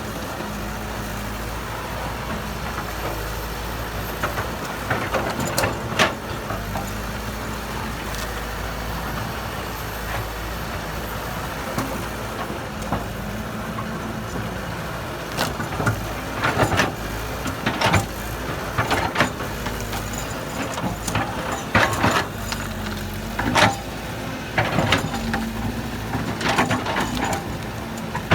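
Heavy diesel earthmoving machinery running steadily, with irregular clanks and knocks that come much more often in the second half.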